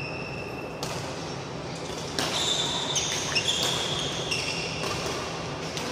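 Badminton rally: rackets strike the shuttlecock in a string of sharp hits about a second apart, with shoes squeaking on the court mat between shots.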